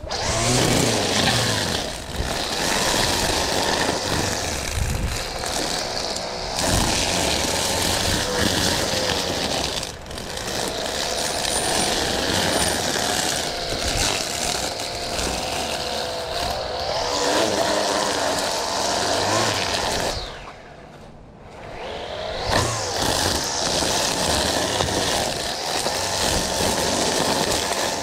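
Small petrol engine of lawn care power equipment running steadily at work, with a wavering whine over a broad rush of noise. It drops away briefly about twenty seconds in, then picks back up.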